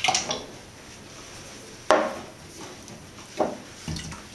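Whole canned tomatoes and their juice tipped from a can into a glass bowl: a few separate wet plops and knocks, the loudest about two seconds in.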